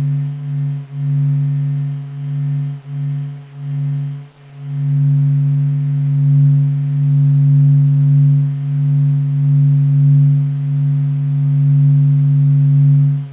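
Sonified solar data: the Sun's oscillations, as recorded by the SOHO observatory, sped up into a low, steady humming drone. It dips in level several times in the first few seconds, then holds steady.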